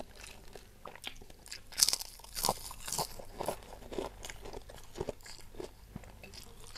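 A person chewing and biting food close to the microphone: a string of short, sharp clicks and snaps, about one or two a second, loudest about two seconds in.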